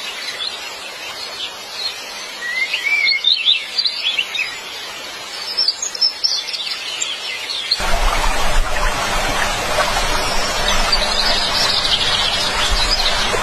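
Several birds chirping over a background hiss; about two-thirds of the way through the background noise suddenly gets louder and fuller.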